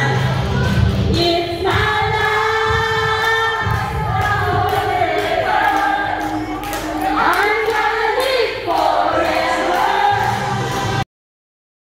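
A group of singers singing together into microphones, with some long held notes. The sound cuts off suddenly near the end.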